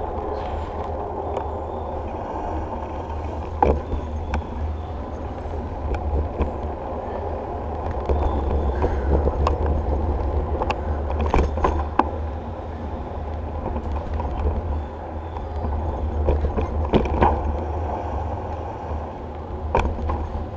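Wind buffeting the microphone of a bicycle-mounted action camera, with steady tyre and road noise as the bike rolls on asphalt. A few sharp knocks come every several seconds as the bike jolts over bumps and cracks.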